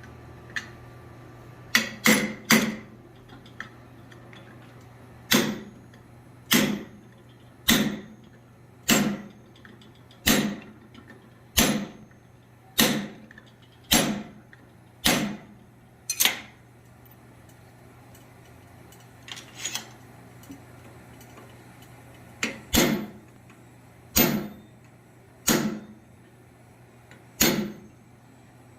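Hand hammer striking steel on an anvil in a steady rhythm, about one blow a second with a short metallic ring after each, pausing for a few seconds midway before the blows start again. A steady low hum runs underneath.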